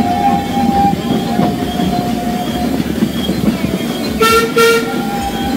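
Narrow-gauge train carriage running steadily on the rails, with the locomotive giving two short toots about four seconds in.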